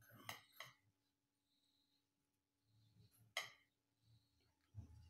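Near silence: room tone with a few faint short clicks, the clearest about three and a half seconds in.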